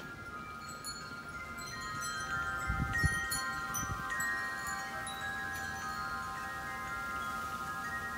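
Several hanging metal tube wind chimes ringing together: many overlapping tones that sustain and fade, with fresh strikes thickest about two to four seconds in. A brief low rumble comes about three seconds in.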